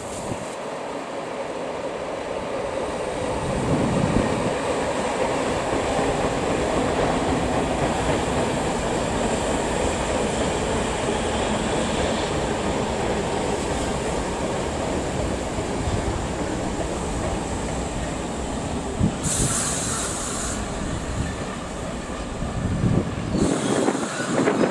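A train running past on the line: a steady rush of wheel and rail noise that builds over the first few seconds and holds, with a high hiss cutting in twice near the end.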